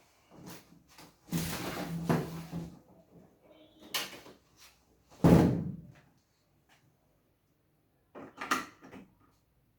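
Handling knocks on a workbench: a scraping rustle of about a second and a half, a click, one loud thump, then a few lighter clicks near the end.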